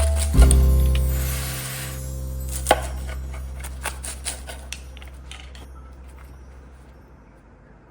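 A knife cutting through a baked flaky butter-crust pie on a board: a crisp crunch, then several sharp knocks of the blade on the board. Background music holds a low chord that fades out.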